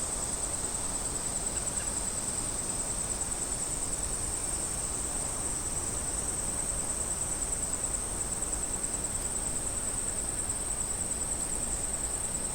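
Cicadas buzzing in chorus: a steady, high-pitched drone with a fine rapid pulse, over a low background hiss.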